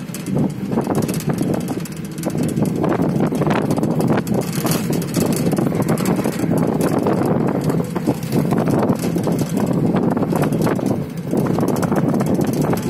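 A car driving along the road, heard from inside: a steady rumble of tyres and engine, with wind buffeting the microphone.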